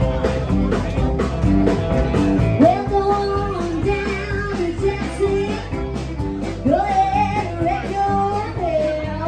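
Live bar band playing, with electric guitar, bass guitar and drums; a woman's singing comes in over it about three seconds in.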